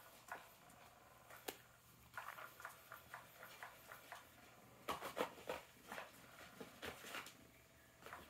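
Kittens' paws pattering and scrabbling on a plastic tarp: a scatter of light taps and crinkles, thickest about five seconds in.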